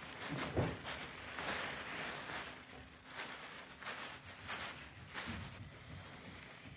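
Tissue paper crinkling and rustling in irregular soft strokes as kittens move about in a pit filled with loose tissue paper.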